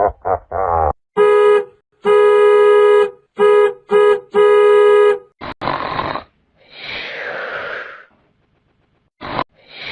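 A string of comedy sound effects: a harsh buzzer-like honk in five blasts, one of them long, then a short noisy burst and a long, snore-like rasping breath.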